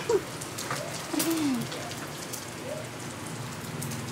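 Onions, garlic, chili and meat sizzling in oil in a wok over a gas burner: a steady frying hiss with scattered small pops. A brief low falling sound about a second in is the loudest moment.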